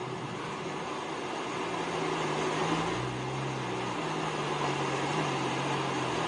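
Engine hum and road noise inside a moving white Porsche's cabin. The engine's low hum rises and falls in pitch a few times around the middle as the car changes speed.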